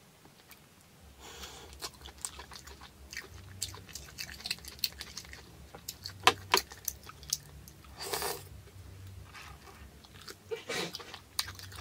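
Close-miked eating sounds of a person sucking and biting meat out of a cooked lobster claw shell: wet mouth clicks and chewing, with a few louder sucks about six and eight seconds in.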